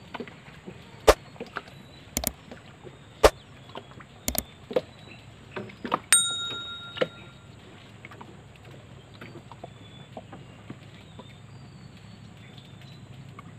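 Subscribe-reminder sound effect: a string of sharp mouse clicks, some in quick pairs, then a bright bell ding about six seconds in that rings out for about a second, over faint steady background noise.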